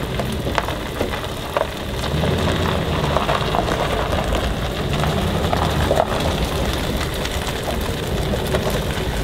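Pickup truck slowly towing a bass boat on its trailer over gravelly pavement: steady tyre and road noise with scattered small clicks and rattles over a low engine hum.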